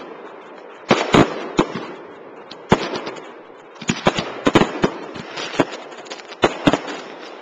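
Aerial fireworks bursting overhead: a run of sharp bangs in irregular clusters, several in quick succession, over a steady background hiss.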